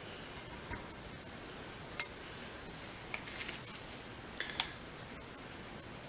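A handful of faint, scattered clicks and taps from a silicone spatula knocking against a glass mixing bowl and a handheld infrared thermometer being picked up, over low room hiss.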